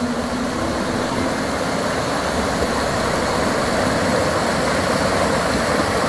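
Rushing water of a shallow river rapid, a steady even rush over rocks and ice.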